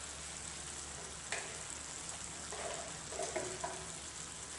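Green chillies frying in a spiced curd masala in a kadai: a low, steady sizzle with a few small crackles around the middle.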